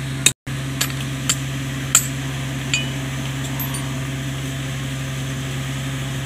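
A handful of short metallic clinks as pieces of a tractor chain and a shackle are handled, mostly in the first three seconds, over a steady low machine hum.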